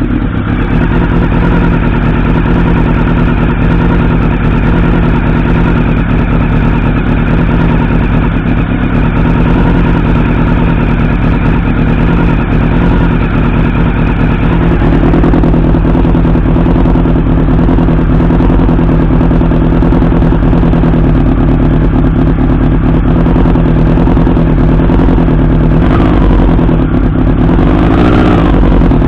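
1989 Honda CB-1's 400 cc inline-four idling steadily through its exhaust, warming up from a cold start, with a brief rise in pitch near the end.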